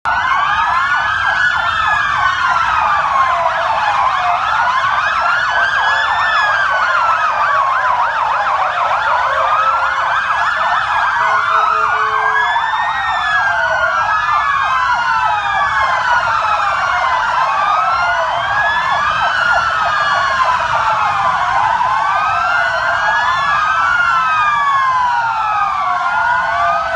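Several police car sirens wailing at once, each tone rising and falling over a few seconds, the different sirens overlapping out of step.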